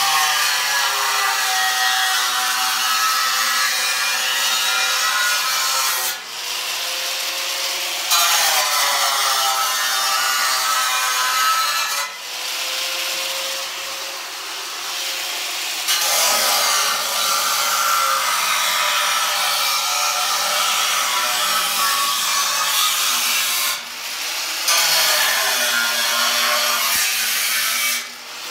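Handheld angle grinder cutting through truck-body sheet metal, running in several stretches broken by short stops, its motor whine climbing back up to speed each time it restarts.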